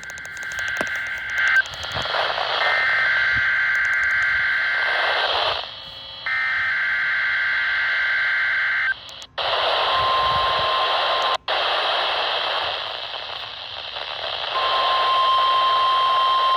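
NOAA Weather Radio broadcast received through heavy static. Three bursts of SAME digital header tones, each a couple of seconds long, are followed about ten seconds in by the steady 1050-hertz warning alarm tone. The alarm drops out under the hiss and returns near the end. This is a weekly test of the warning alarm.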